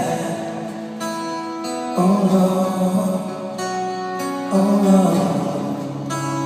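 Live band music: sustained chords and held notes, louder swells about two seconds in and again near five seconds, the instrumental intro before the vocal comes in.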